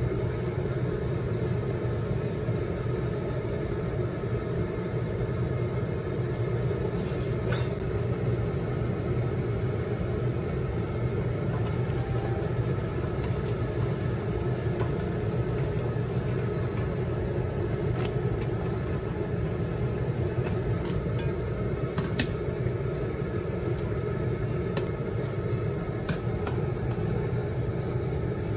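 Steady low rumble of a stainless pot of water heating and boiling hard on an induction cooktop, with a few sharp clicks and clinks against the pot.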